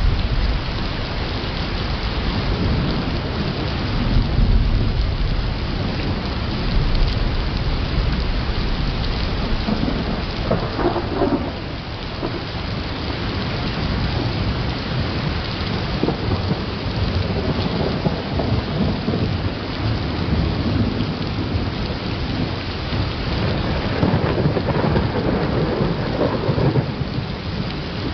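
Thunderstorm: a steady hiss of rain with deep rolling thunder, swelling in two longer rumbles, one about ten seconds in and one near the end. The recording is slowed to about a third of normal speed.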